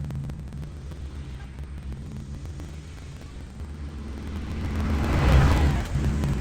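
Tractor engine running steadily, quieter around the middle and growing louder again about five seconds in.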